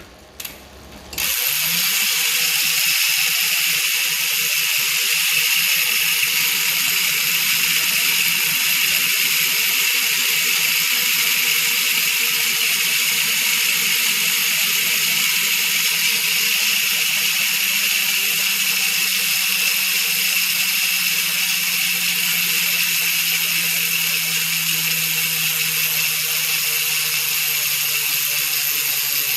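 Trail Mech bicycle rear hub freewheeling, its 60-engagement-point ratchet clicking so rapidly that the clicks merge into a steady buzz. It starts about a second in, after several months of use.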